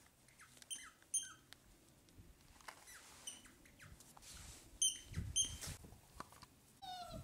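Samoyed puppies at play: several short, high squeaks, some in quick pairs, mixed with brief falling whimpers and a longer falling whine near the end, over soft pattering.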